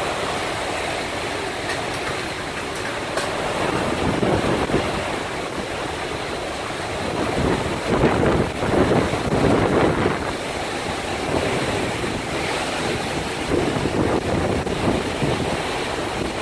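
Hurricane-force wind and heavy rain as a steady rushing, swelling in several gusts that buffet the microphone.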